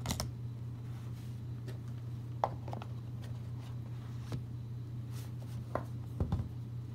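Handling of an iPhone 4S and its cardboard retail box: the phone set into the box tray and the lid fitted on, giving a few light taps and knocks spaced out over several seconds, with a small cluster near the end. A steady low hum sits underneath.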